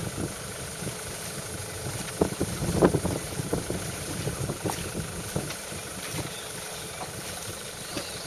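Legs wading and splashing in shallow water, with irregular splashes and knocks, the loudest about two to three seconds in, over a steady low rumble.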